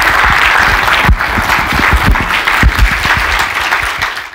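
Audience applauding, a dense run of clapping that thins a little near the end and then cuts off suddenly.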